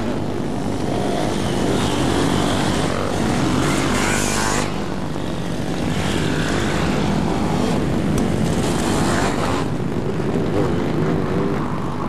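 Several enduro dirt bike engines revving together in a loud, steady buzz, the pitch rising and falling as they are throttled.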